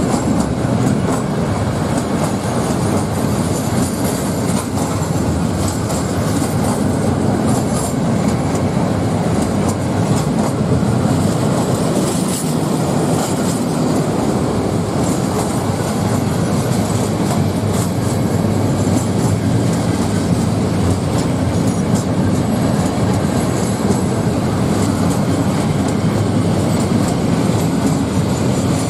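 Freight train of covered cement hopper wagons rolling past at close range: a steady rumble of wheels on rail with the clatter of wagons going over the track.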